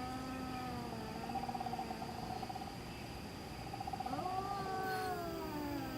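Domestic cat yowling: long, drawn-out, wavering calls that slide slowly in pitch with a quick warble in the middle, a new call rising about four seconds in.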